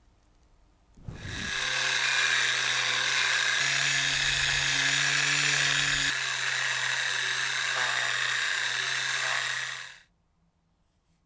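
Handheld electric sander running steadily while sanding the round top of a small wooden part. It starts about a second in and cuts off near the end.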